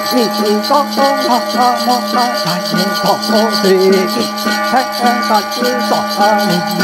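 Hmong shaman's metal ring rattle jingling without pause, with a chanting voice sliding up and down over it.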